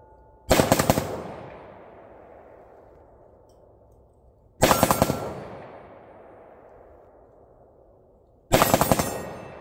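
5.56/.223 rifle fired in three quick strings of shots about four seconds apart, each string a fast cluster of cracks followed by a long fading echo.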